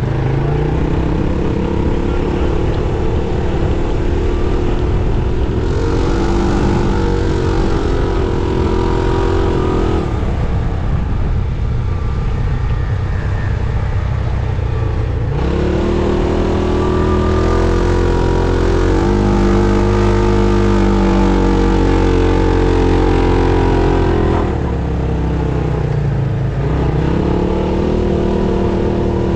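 Arctic Cat Wildcat 1000X side-by-side's V-twin engine running under load, its pitch climbing and dropping several times as it revs up and backs off. A steady low rumble runs underneath.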